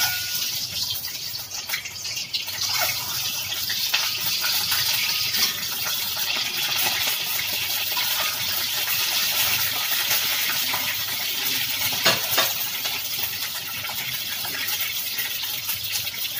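Peeled hard-boiled eggs frying in a little hot oil: a dense crackling sizzle that starts suddenly as they go into the pan and keeps going, with scattered sharper pops.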